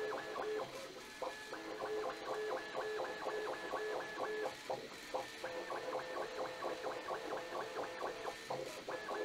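Bambu Lab A1 3D printer's stepper motors whining in quick, pitch-jumping pulses, several a second, as the print head zigzags back and forth at high speed in sport mode, broken by a few short pauses.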